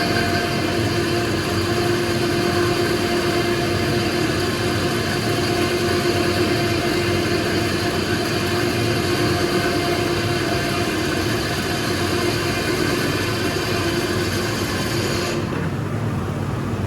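CNC machine tool running and cutting metal: a steady mechanical noise with a constant tone through it. The high hiss thins out briefly near the end.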